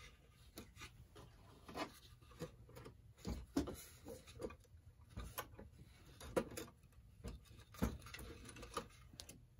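Clock mechanism being worked loose and slid out of a wooden mantel clock case: faint, irregular clicks, knocks and scrapes, with a few sharper knocks scattered through.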